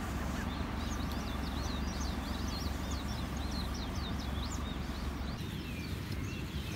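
Dawn chorus of small birds, many quick high chirps overlapping, over a steady low rumble. The chirping thins out a little past five seconds in.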